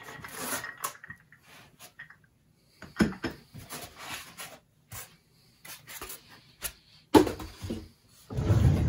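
Foam packing blocks being rubbed and pulled off a resin 3D printer by hand: rustling with a few light knocks, a sharp knock about seven seconds in, then a louder rubbing near the end as the foam is worked free.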